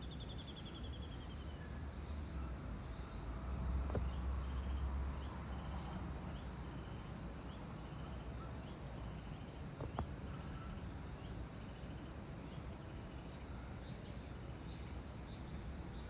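A low rumble of distant thunder swells about three seconds in and fades by about six seconds, over steady outdoor ambience. Insects chirp in a regular repeating rhythm, a bird gives a short descending trill at the start, and there is one sharp knock near ten seconds.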